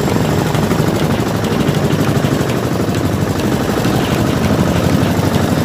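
Engine of a bangka outrigger boat running steadily under way, with a fast, even pulse.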